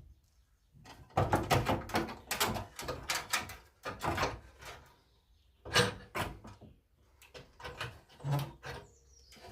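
Irregular clunks and clatter from hands-on work on a car's bent body corner. A dense run of knocks comes in the first few seconds, followed by scattered single knocks.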